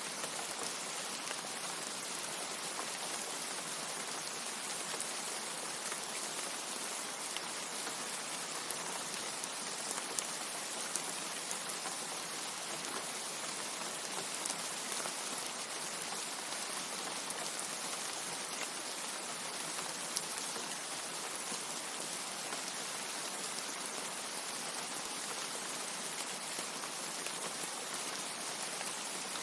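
Steady rain falling: a dense, even hiss with a few louder individual drop ticks scattered through it.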